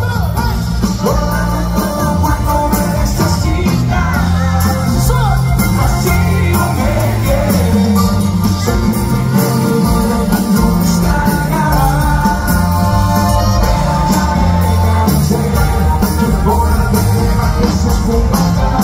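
Norteño band playing live through a concert PA: button accordion over drums and bass, loud and steady.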